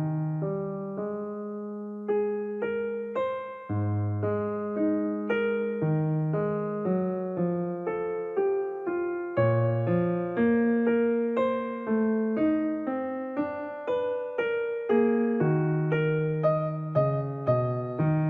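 Background piano music: a gentle melody of single struck notes over held bass notes, each note fading after it is played.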